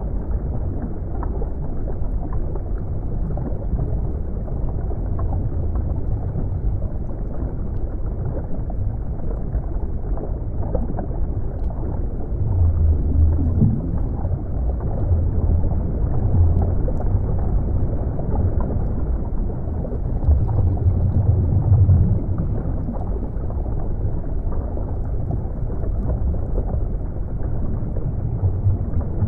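Underwater ambience: a steady, muffled low rumble of moving water, swelling louder a few times in the middle.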